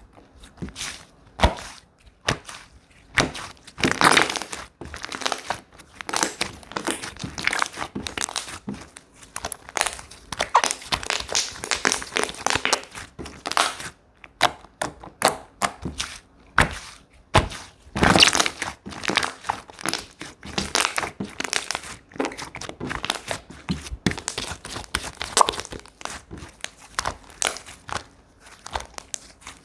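Slime being squeezed, pressed and stretched by hand, making irregular sticky crackling and popping clicks with an occasional soft thunk.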